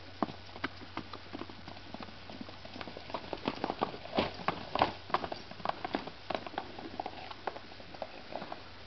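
Hoofbeats of two horses trotting and cantering loose over a sand arena: a quick, irregular patter of hoof strikes, busiest and loudest about midway.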